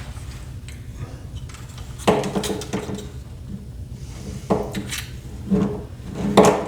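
Hard plastic parts of an original Xbox controller being handled and set down during disassembly: a string of clicks and clatters from about two seconds in, over a steady low hum.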